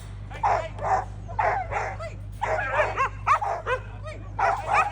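A dog barking repeatedly in short, quick barks, about two to three a second, some bending into yelping whines.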